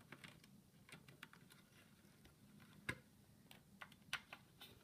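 Faint, scattered small clicks and ticks of a screwdriver backing screws out of an essential oil diffuser's circuit board, and of the board and plastic housing being handled, with two sharper clicks about three and four seconds in.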